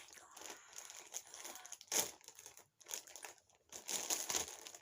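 Packaging crinkling and rustling as a gift is handled and opened, with a sharper, louder crackle about two seconds in.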